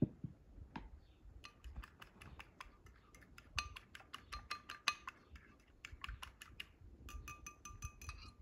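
Fork beating a mixture in a plastic bowl: quick runs of clicking strikes of the tines against the bowl, about five a second, faster near the end.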